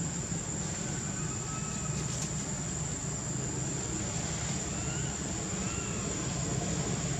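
Steady outdoor background rumble and hiss with a constant thin high whine, and a few faint short high chirps scattered through it.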